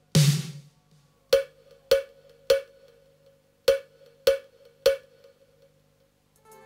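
Electronic percussion from a live synthwave set through the PA: a loud crash-like hit at the start, then two sets of three short, ringing knocks about half a second apart. After a brief pause, a new synth pattern with a quick repeating pulse begins right at the end.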